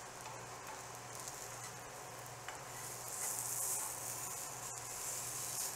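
Banana pancake batter sizzling in hot oil in a non-stick frying pan, with a faint click of a metal spatula as the pancakes are turned. The sizzle grows louder from about three seconds in.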